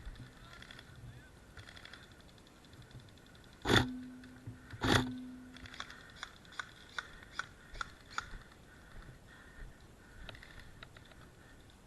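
Two loud sharp bangs about a second apart, each with a short ringing tail, followed by a run of lighter clicks and taps.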